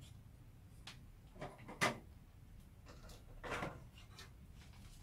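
The top cover of a Bang & Olufsen VX4000 VHS video recorder being slid and lifted off its chassis. There are a few light clicks, then a scrape that ends in a sharp knock just under two seconds in, and a longer scraping rub about three and a half seconds in.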